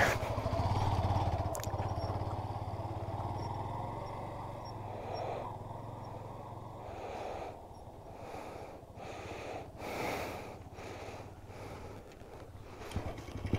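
Motorcycle engine running steadily, growing fainter over the first several seconds and staying faint after that.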